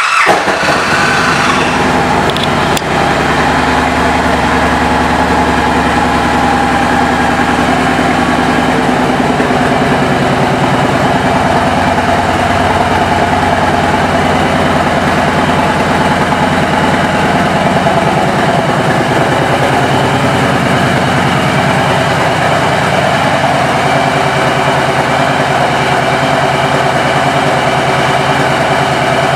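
2016 Victory Magnum's 106-cubic-inch V-twin engine idling just after being started. It runs a little higher for the first couple of seconds, then settles into a steady idle.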